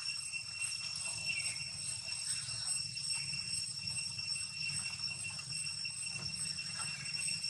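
Steady, high-pitched drone of insects, unbroken and even, with a low hum beneath it.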